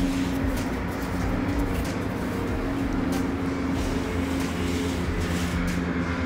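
Steady kitchen hum with a low rushing noise as oil heats in a steel kadhai on the stove.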